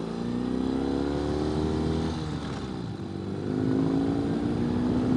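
Ural sidecar motorcycle's flat-twin engine pulling under acceleration, its pitch rising, dropping at a gear change about two to three seconds in, then rising again.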